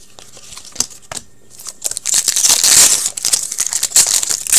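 Crinkling and tearing of a foil trading-card pack wrapper being opened: a few light clicks of cards being handled, then a loud spell of crinkling about two seconds in and another near the end.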